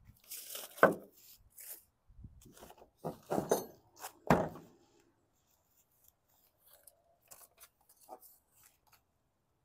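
Handling noises: scraping and rustling with a few sharp knocks in the first half, loudest about a second in and again after four seconds, then only faint scattered clicks.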